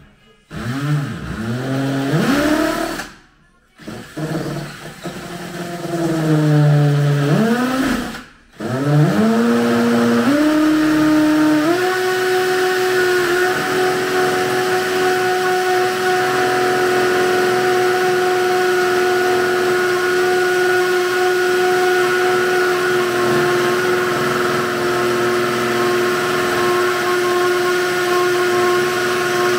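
Cordless drill drilling into a wall. The motor whine rises in pitch as the trigger is squeezed, stops twice in the first nine seconds, then climbs in steps to full speed and holds a steady high pitch.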